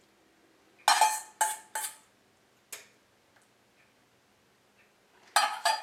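Metal spoon knocking against a stainless steel mixing bowl, knocking off the last of the tomato sauce: three quick clanks about a second in, a lighter one shortly after, and another run of clanks near the end, each with a short metallic ring.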